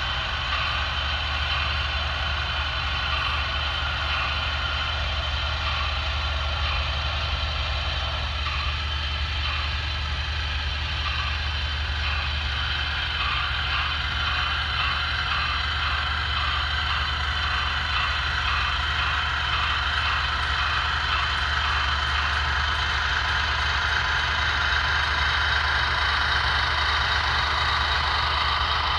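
HO-scale model trains running with onboard digital sound: a Broadway Limited Union Pacific 4-8-2 Mountain steam locomotive standing at idle, with a steady hum and hiss, as a diesel switcher and tank cars roll past on the next track. A soft regular beat joins about eight seconds in, and the sound grows a little louder near the end as the tank cars pass close by.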